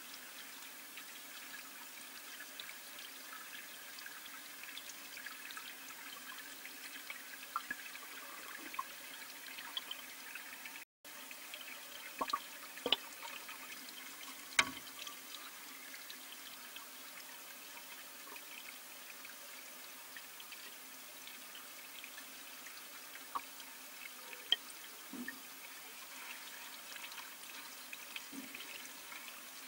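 Pond water heard underwater: a steady faint hiss over a low hum, broken by a few sharp clicks and ticks, most of them a little before halfway through and again in the last few seconds.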